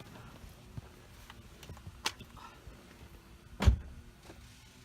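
Light plastic clicks and one loud knock a little past halfway, from hands and tools working on the steering wheel's plastic trim and screw covers.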